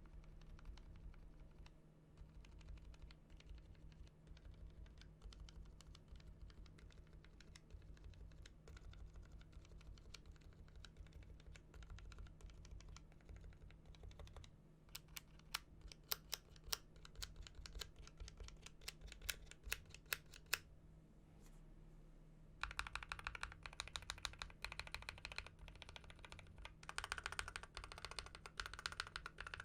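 Typing on a mechanical keyboard fitted with Akko linear switches: steady fast keystrokes, then a run of sharper, separate key clicks midway, and louder, brighter typing over the last few seconds.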